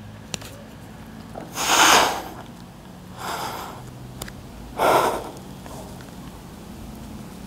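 A man's forceful breaths, three sharp blasts about a second and a half apart, the first the loudest.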